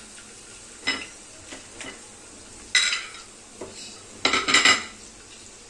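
A spoon clinking and scraping against a large metal cooking pot while stirring, with a ringing knock about three seconds in and a louder cluster of ringing clinks about a second later. Underneath is a low steady sizzle of whole spices and chopped garlic and ginger frying in oil.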